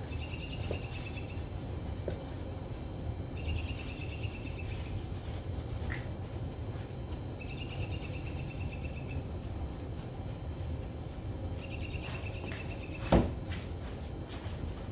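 Outdoor ambience during a car wash: a steady low rumble, with a short, high, rapidly pulsing trill that repeats about every four seconds. One sharp knock about 13 seconds in, where the long-handled wash brush is being worked against the front bumper.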